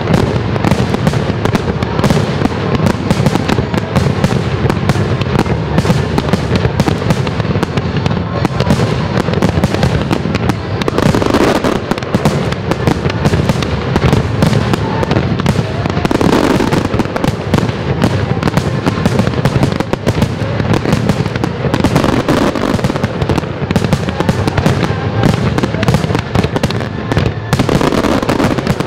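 Aerial firework shells bursting in a continuous, dense barrage of bangs and crackles with no pauses between them.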